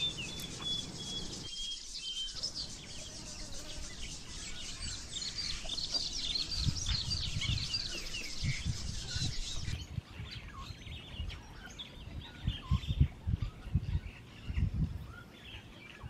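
Small birds chirping and calling in many quick short notes. After about ten seconds the chirping thins out and soft low thumps take over, with a few scattered calls.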